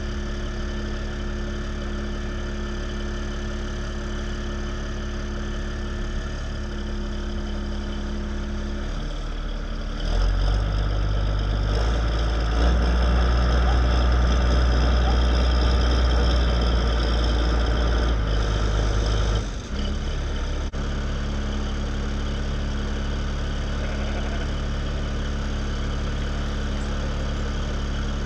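Vehicle engine running steadily, heard from inside the cab. About ten seconds in it grows louder and its pitch shifts for roughly ten seconds, as under acceleration or load, then settles back to the earlier steady running.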